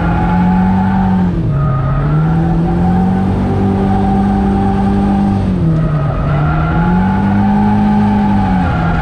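Honda Civic drift car's engine heard from inside the cabin, held at high revs on track, with the revs dropping sharply twice, about a second and a half in and again about six seconds in, and climbing back each time.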